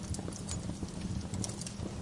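Wood fire burning in a fireplace, with a steady low rumble of flames and frequent small crackles and pops from the burning logs.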